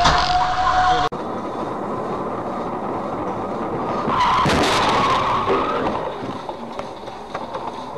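Car crash heard through a dashcam's microphone. Steady road noise inside the car, then about four seconds in a loud burst of screeching and collision noise lasting about a second and a half, as the impact knocks the camera loose. Before that, a steady pitched tone from the preceding clip cuts off abruptly about a second in.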